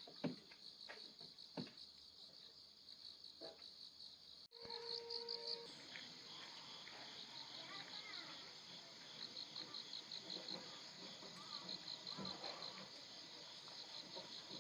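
Crickets chirping in a steady high trill of rapid pulses, with a few soft knocks in the first few seconds. A brief steady beep-like tone sounds about five seconds in.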